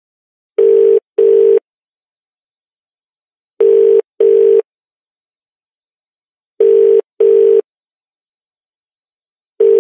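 British telephone ringing tone heard by the caller: a low double beep that repeats every three seconds, three times plus the start of a fourth, while the call rings out unanswered.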